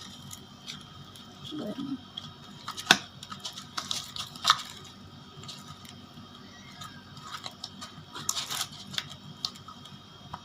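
Freshly activated clear slime, made from glue and borax, being kneaded and squeezed in the hands: soft, sticky squishing with scattered small clicks, and two sharper clicks about three and four and a half seconds in.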